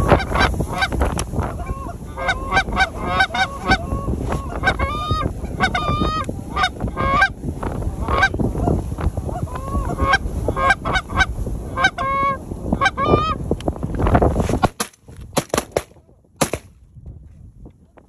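Geese honking over and over, short clucking honks one after another, over steady wind noise. About fifteen seconds in the honking and wind cut off abruptly, and a few short clicks follow.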